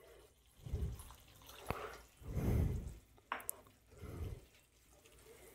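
Water poured from a cup into a pan of thick vegetable gravy: faint splashing and dripping in a few short spells, the strongest about halfway through, with a couple of light clicks.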